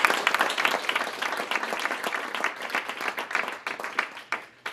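Audience applauding, the dense clapping thinning to a few scattered claps and dying out near the end.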